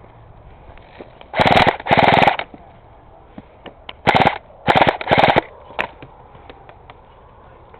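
Airsoft rifle firing five short full-auto bursts of rapid shots, two in quick succession about a second and a half in and three more around four to five and a half seconds in.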